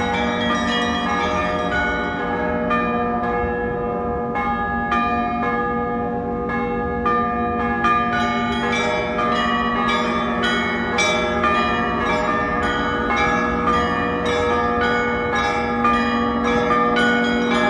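Orthodox church bells ringing: many bells of different pitches are struck in a quick rhythmic pattern over the steady hum of lower bells, and the strokes come faster and denser from about eight seconds in.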